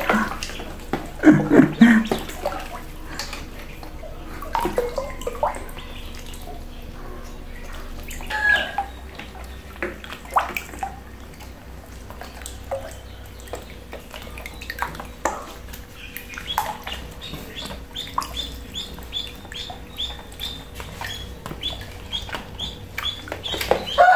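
Ducklings paddling and splashing in shallow water in a plastic tub, with irregular small splashes and knocks and a few louder splashes near the start. Short high duckling peeps come now and then, and in the second half a run of quick, evenly repeated peeps, over a faint steady hum.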